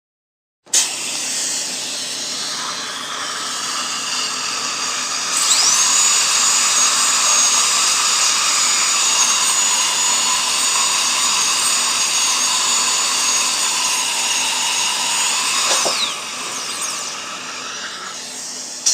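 A high-pitched drill whining. It spins up to a steady shrill tone about five seconds in, holds it, then winds down again near the end.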